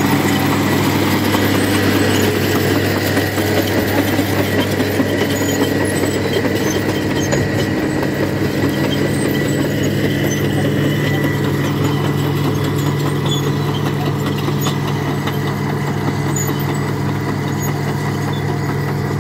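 Caterpillar D6E crawler tractor's diesel engine running steadily under load as it pulls a reversible two-furrow plough through stubble.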